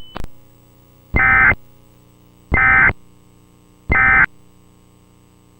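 Emergency Alert System end-of-message signal: three short, identical bursts of SAME digital data tones, about 1.4 s apart, marking the end of the alert. A click or two comes right at the start.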